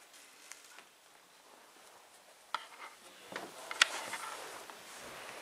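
Faint, unintelligible voice-like murmur against quiet room noise, broken by a few sharp clicks, the loudest a little after halfway. The murmur is what is taken for an EVP, a voice with words that cannot be made out.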